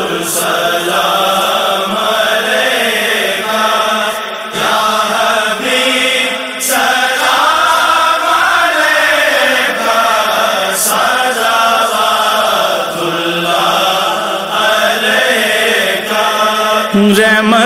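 Male voices in a chanted vocal interlude of a naat, the melody gliding up and down in long, sustained phrases.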